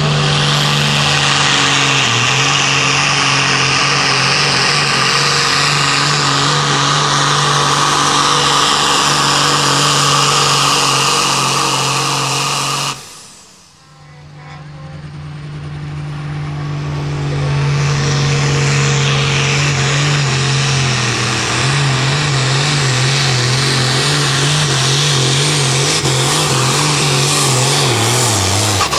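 Modified farm pulling tractor engines running at full throttle under heavy load while pulling the weight sled. The sound cuts off abruptly about halfway through, then builds back up. In the last several seconds the engine's pitch wavers rapidly up and down.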